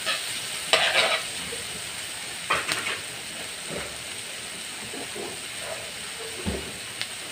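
Ginger, onion and tomato sautéing in a hot wok with a steady sizzle. A metal spatula scrapes and clatters against the pan about a second in and again a little before 3 s.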